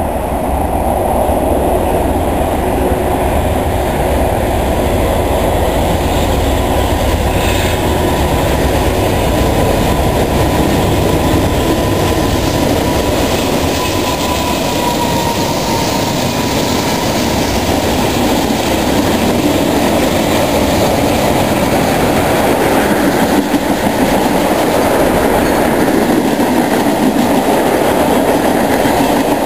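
Freight train passing close by: two BNSF diesel locomotives go by, then a long string of loaded tank cars, their wheels clicking over the rail joints. The noise is loud and steady throughout.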